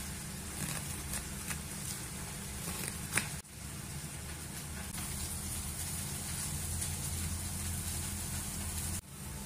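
Steady low background hum with a few faint, scattered clicks of a knife against a wooden cutting board while an onion is sliced; the sound drops out briefly twice.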